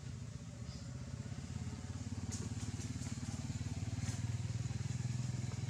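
A small engine running steadily, growing a little louder after about two seconds, with a few faint clicks over it.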